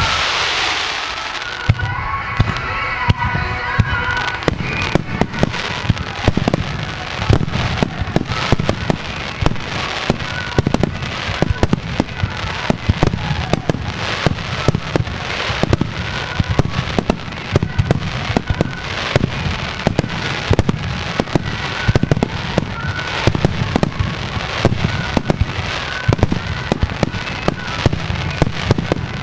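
Starmine fireworks display: a rapid, unbroken barrage of shells launching and bursting, sharp bangs several times a second over a steady low rumble. A loud hiss opens the first second or two.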